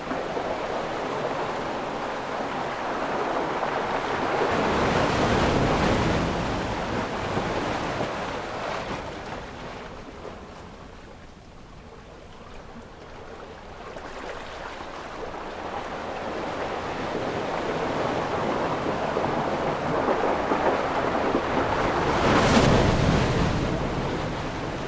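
Ocean waves breaking and washing in, a slow surge of surf noise that crests about five seconds in, eases off around the middle, then builds to a second, louder crest near the end.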